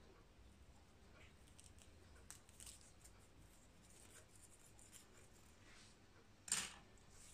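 Near silence with faint rustling from hands handling coils of braiding hair on wooden sticks, and one brief louder scrape about six and a half seconds in.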